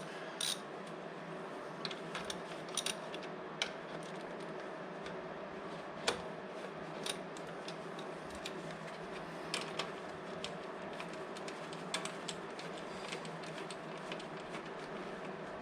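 Scattered, irregular clicks and taps of hand tools on metal as the front brake caliper bolts are loosened, over a steady low background hiss.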